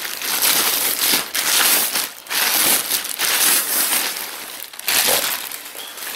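Thin clear plastic bag crinkling as it is handled and the jacket is pulled out of it, irregular and loud, dying down over the last second or so.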